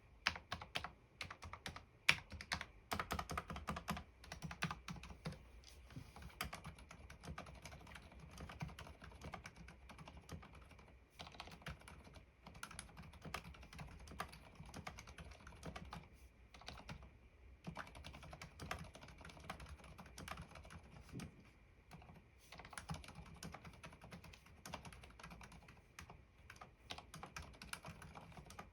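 Mechanical keyboard with TAUCHE.T silent black linear switches, spray-lubricated with Super Lube and with Permatex-lubed stabilizers, being typed on continuously: quiet keystrokes in quick succession, heaviest in the first few seconds.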